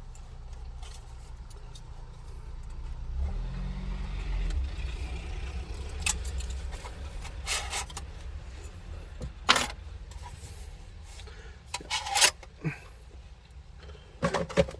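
Clicks, clatter and rattling of a car radio, its mounting cage and adapter parts being handled and fitted into the dashboard. Sharp clicks come about two-thirds of the way in and again near the end, over a low steady rumble.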